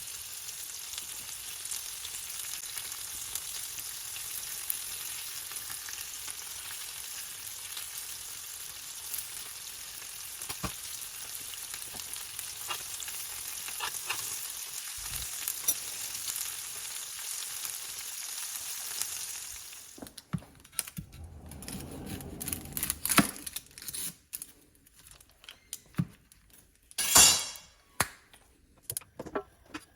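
Steak sizzling steadily as it fries in a pan. About two-thirds of the way through the sizzle stops, followed by scattered clicks and knocks, with one louder clatter near the end.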